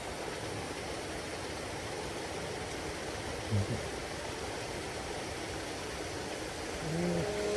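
Steady rushing of running water. A short pitched sound comes about three and a half seconds in, and background music begins near the end.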